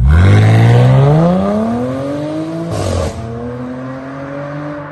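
Audi A7 3.0 TFSI's supercharged V6 launching hard from idle, its exhaust note climbing steadily in pitch for nearly three seconds. It upshifts with a short blip and drop in pitch, then pulls again, fading as the car drives away.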